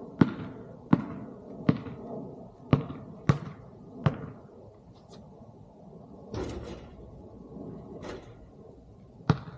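Basketball bouncing on a hard court: six bounces in an uneven rhythm about a second apart, then a brief rushing sound, and one more bounce near the end.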